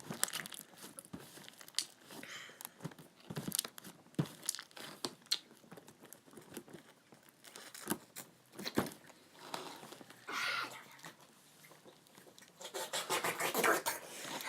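Hands working sticky slime, stretching and squeezing it: a string of small clicks and crackles, busier near the end.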